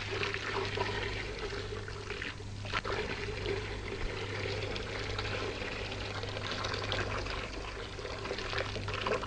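Water drawn from a pulley well pouring in a steady stream, under a steady low hum.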